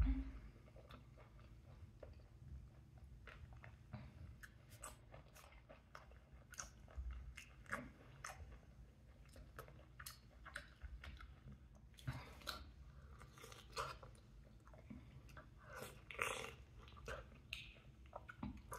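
A person chewing and biting mouthfuls of ripe mango flesh, with irregular short mouth clicks and smacks throughout. A single bump right at the start is the loudest moment.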